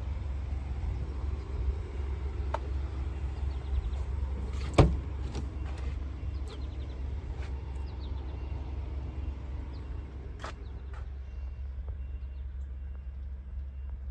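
Jeep Wrangler door unlatched and swung open: a sharp knock of the latch about five seconds in, with a few lighter clicks around it, over a steady low rumble.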